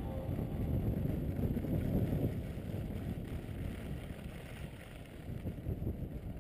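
Wind buffeting the microphone of a helmet-mounted GoPro HD HERO2, together with skis running on groomed snow, as a skier glides downhill and slows. It is a low, uneven rumble that eases slightly about five seconds in.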